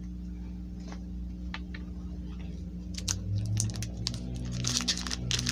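Pokémon trading cards being handled and arranged, with a few light clicks early on and a busier run of clicks and rustles from about three seconds in, over a steady low hum.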